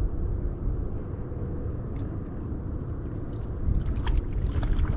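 Steady low rumble of a boat sitting on the water, with a faint hum, and a few small clicks and ticks in the second half.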